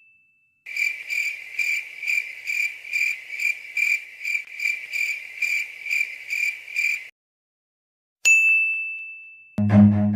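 A high, bright ringing tone repeated in quick pulses, about two a second for six seconds, then a single bright ding that rings out. Music starts near the end.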